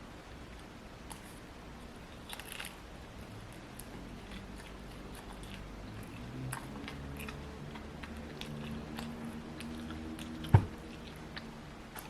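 Close chewing and crunching of food, with scattered small clicks and one sharp knock about ten and a half seconds in.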